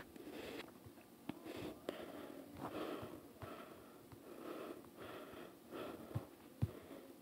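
Faint breathing and sniffing close to the microphone, coming in soft puffs about every second, with a few small clicks.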